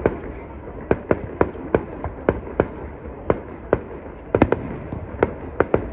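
Fireworks bursting overhead: a rapid, irregular string of sharp bangs, about two or three a second, over a steady background rumble.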